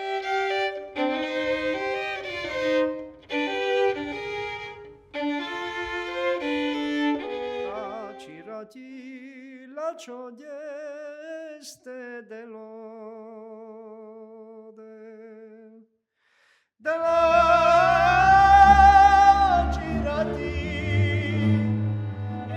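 Transylvanian folk violin playing a slow, melancholy tune in double stops, then a solo line with wide vibrato. After a brief break, a man sings loudly with vibrato over double bass and brac accompaniment.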